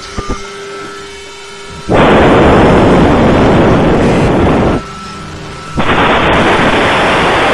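Loud television-style static hiss played down a phone line in two abrupt bursts of about three and two seconds, with a short gap between them, to blast the listener's ears. Before the first burst there is only a faint line hum with a few steady tones.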